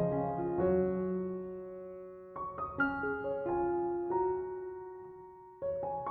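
Background music: soft piano playing slow phrases of struck, decaying notes.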